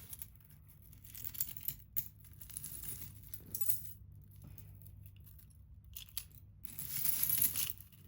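Loose costume jewelry clinking and rattling as it is sifted through by hand, in scattered short bursts with a busier stretch near the end.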